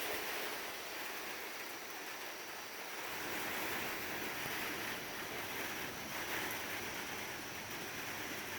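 Thunderstorm rain and gusty wind: a steady hiss that swells and eases slightly.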